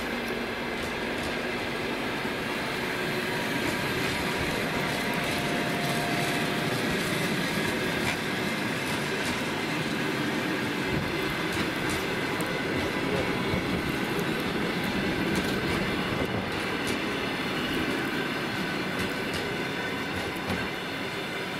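Passenger railway coaches rolling past: a steady rumble of steel wheels on the rails, with scattered clicks as the wheels cross joints and points, and a faint thin squeal now and then.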